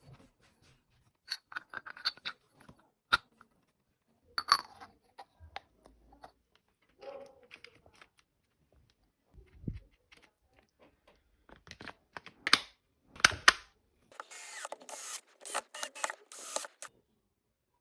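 Intermittent clicks, clinks and light metallic rattles from handling tools and small metal parts, with a denser run of short rattling, scraping sounds near the end.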